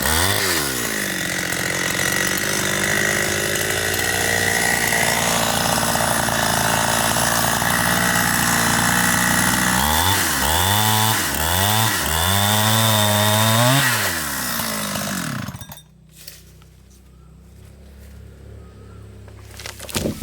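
Chainsaw running at full throttle through a cut, revving up and down a few times, then throttled back to a low idle about sixteen seconds in. A single sharp knock comes near the end.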